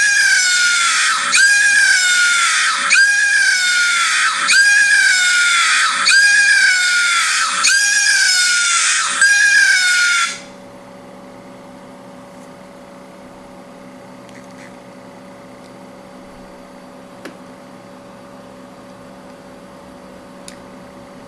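WaveSecure anti-theft alarm sounding from an HTC Kaiser phone's speaker: a loud siren-like wail that falls in pitch, repeating about every second and a half. It cuts off suddenly about ten seconds in, leaving a low steady hum and a few faint clicks.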